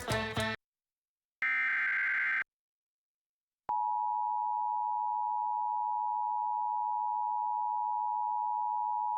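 Music cuts off, and after a pause comes a one-second burst of Emergency Alert System SAME header data, a buzzy digital screech. Almost four seconds in, the EAS two-tone attention signal (853 and 960 Hz) begins and holds steady.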